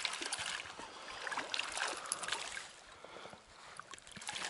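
Water splashing and sloshing at the surface as a small hooked grayling thrashes on a spinning line, with small clicks mixed in. It is busiest in the first two seconds or so and quieter from about three seconds in.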